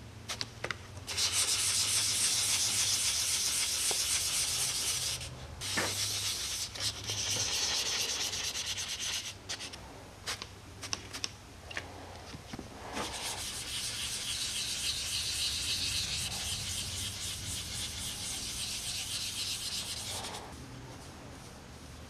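Hand wet-sanding of a cured Marine-Tex epoxy patch in fiberglass gelcoat with fine-grit wet sandpaper: an even, high-pitched hiss in three long stretches, with short pauses and a few light taps between them.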